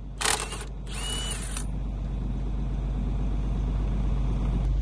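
Two short hissing bursts in the first second and a half, then a vehicle engine's low rumble that grows steadily louder, as if coming closer.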